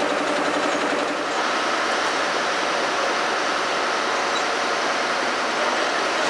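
A diesel engine idling with an even beat for about the first second, then a steady, even rushing noise of running machinery that holds at one level.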